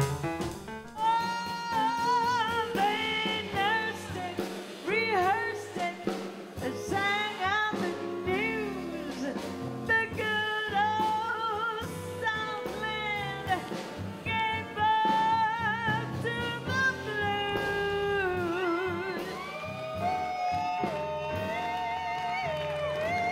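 Live jazz-blues band playing, with a wavering lead melody line with vibrato over piano, guitar and drums.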